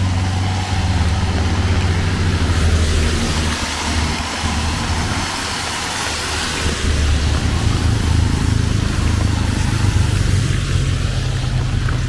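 A motor vehicle's engine running close by over a steady hiss of rain. The engine hum fades in the middle and then comes back strong.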